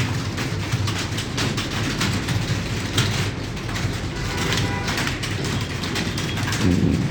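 Computer keyboards clattering as several typists key in text at once: a dense, continuous, irregular stream of key clicks.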